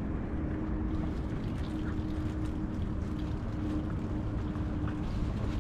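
Small fishing boat's engine running steadily with a hum, over water splashing and sloshing around the hull.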